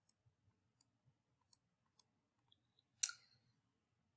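Near silence with a few faint clicks of a stylus on a tablet while a word is handwritten, and one sharper click about three seconds in.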